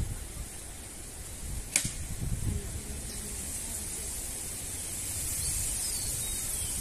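Outdoor ambience dominated by wind buffeting the microphone in an uneven low rumble, over a steady high hiss. A single sharp click comes a little under two seconds in.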